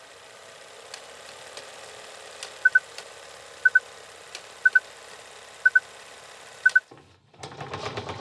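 Film-countdown leader sound effect: a steady mechanical whir with scattered crackle clicks, and a short double beep once a second, five times, as the countdown numbers tick down. About seven seconds in it cuts out and a louder rattling clatter starts.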